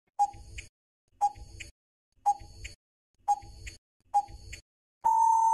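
Quiz countdown timer sound effect: five short ticks about a second apart, then a longer steady beep about five seconds in that marks time up.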